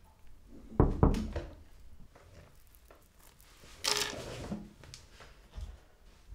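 Two heavy thuds about a second in, then a scraping rustle as a person rises from a chair, followed by a few soft footsteps.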